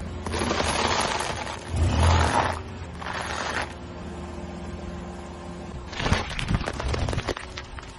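Car tyre rolling over and crushing crunchy food items on asphalt: a grinding crunch for the first three and a half seconds, a quieter stretch with a faint steady hum, then a quick run of sharp crackles from about six seconds in.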